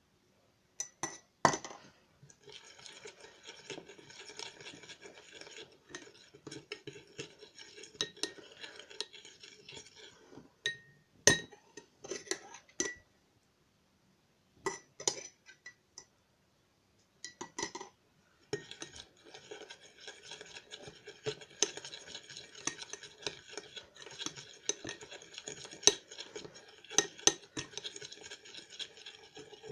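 Metal spoon stirring glue slime in a glass bowl, scraping and clinking against the glass in two long stretches, with a few sharp clinks between them as the spoon knocks on glass.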